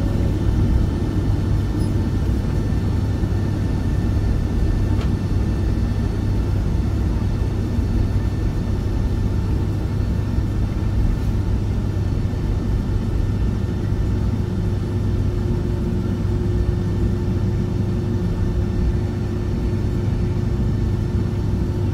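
Steady low rumble of a jet airliner's cabin while taxiing on the ground: the engines are at low thrust and the plane is rolling along the taxiway. A faint steady hum joins about two-thirds of the way through.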